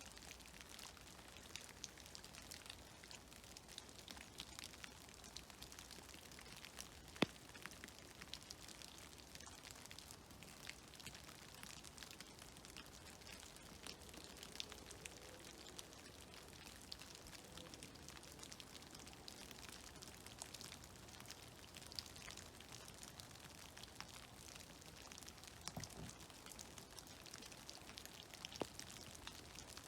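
Snowmelt dripping from snow-laden trees: scattered, irregular drops pattering down over a faint hiss, with one clearly louder drop about seven seconds in.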